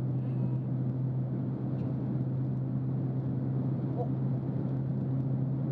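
Cabin noise of a superconducting maglev train (JR Central L0 series) running levitated at high speed: a steady low rumble with a resonant boom and a constant hum, the sign that the train is floating on its magnetic field rather than rolling on its wheels.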